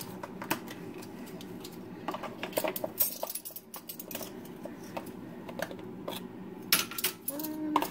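Metal measuring spoon clinking and scraping against a spice jar and bowl as granulated garlic is spooned out, in scattered light clicks, over a steady low hum.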